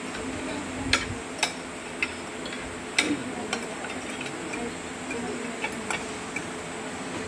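Metal forks and spoons clicking and clinking against plates as people eat: a few sharp, irregular clinks over several seconds, the loudest about a second in and about three seconds in. A steady low hum runs underneath.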